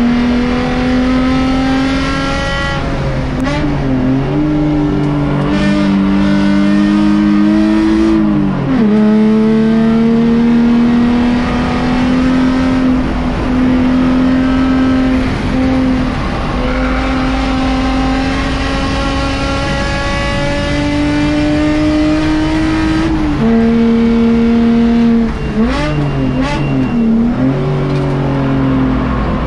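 Mercedes-Benz C300 race car's engine heard from inside the cockpit on a hot lap: long pulls with the revs climbing steadily, a sudden drop in pitch at an upshift about nine seconds in and again about twenty-three seconds in, and uneven rising and falling revs twice, near the start and near the end, as it slows for corners.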